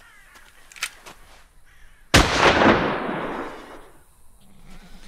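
A single gunshot about two seconds in, sudden and loud, with an echoing tail that fades over about a second and a half. A short sharp click comes about a second before it.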